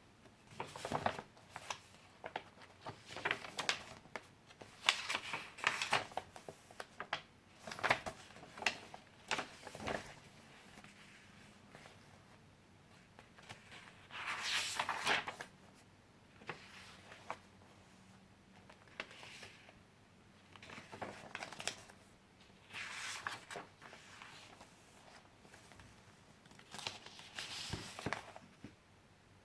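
Paper pages of a handmade junk journal being turned and handled: irregular rustles and flips, with a longer rustle about halfway through.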